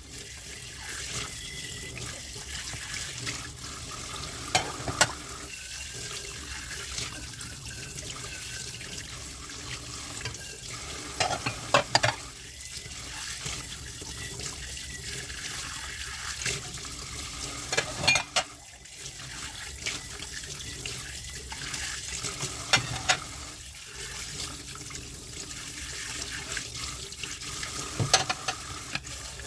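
Tap water running steadily into a kitchen sink while dishes are washed, with sharp clinks of dishes knocking together every few seconds.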